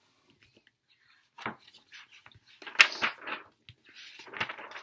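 Paper rustling and flapping as a soft-covered picture book is opened and its cover and pages are turned, in a few short bursts starting about a second and a half in, the loudest about three seconds in.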